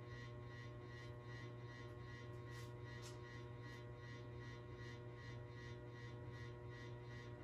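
1997 Harbor Breeze Marco Island ceiling fan running on high: a steady motor buzzing hum, pretty loud, with the airy swish of the blades repeating several times a second.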